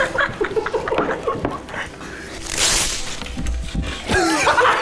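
A long strip of green adhesive tape being peeled off a desk, with a short loud rip about two and a half seconds in. People burst out laughing near the end.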